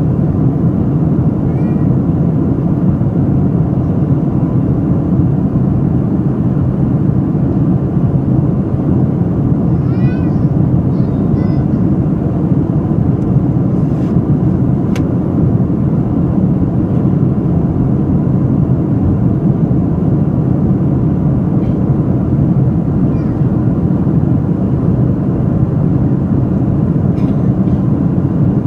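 Steady low roar of an airliner cabin in flight, even and unchanging throughout, with a few brief high chirps about ten seconds in.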